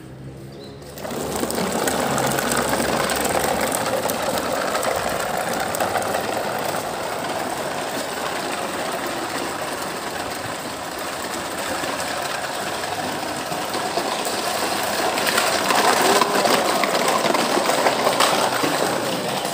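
Plastic toy trucks pushed fast along hard ground, their wheels making a continuous rattle. It starts about a second in and grows louder near the end.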